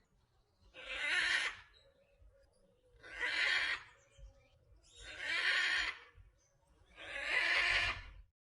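Bird giving harsh, rasping squawks, each about a second long, repeated about every two seconds, five in all.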